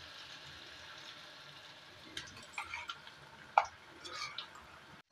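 Batter-coated potato pakoras deep-frying in hot oil in a pan, a steady quiet sizzle. A few sharp crackles break through in the second half, the loudest about three and a half seconds in.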